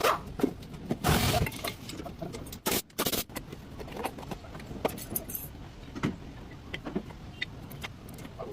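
Scattered metallic clicks and clinks of tools and brake parts being handled, with a louder rushing, scraping burst about a second in and another short one near the three-second mark.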